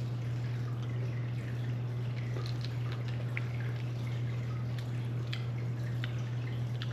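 A steady low hum with faint, scattered small ticks and clicks.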